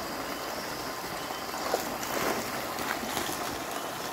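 Water gushing steadily out of a draining fish pond's outlet into a woven bamboo basket, with a few sharper splashes about two to three seconds in.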